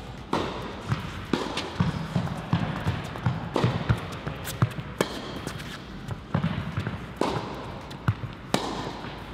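Tennis serve and rally on an indoor court: sharp racket strikes and ball bounces about every second, with players' footsteps on the court surface between them.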